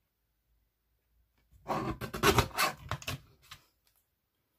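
Paper trimmer's cutting blade sliding down its track and slicing through a strip of white cardstock: a sliding, scraping noise about two seconds long, starting about a second and a half in, with a few sharper catches.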